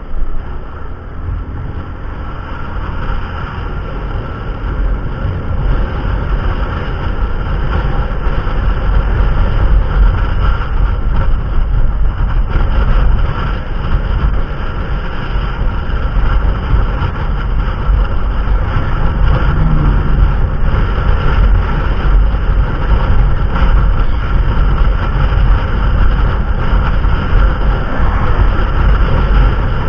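Motorbike riding along with its engine running and wind buffeting the microphone in a deep, gusty rumble. It grows louder over the first several seconds as the bike picks up speed, then keeps up a steady fluttering roar.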